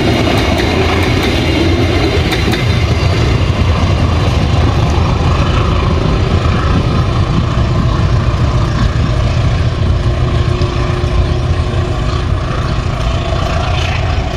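Diesel locomotive hauling a commuter train as it passes, its engine running loud and steady with a low drone.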